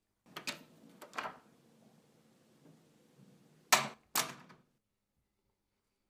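Soft kissing and rustling sounds, then two sharp clunks about half a second apart, like a door being worked.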